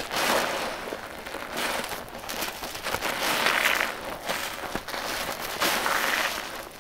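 Wet sponges loaded with a pasty mixture being squeezed by hand, in about four long swells of wet noise with small clicks between them.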